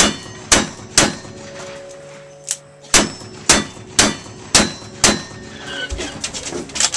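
Revolver shots at steel targets, about half a second apart: three shots, a pause of about two seconds, then five more, each followed by the ring of struck steel. Light clattering follows near the end.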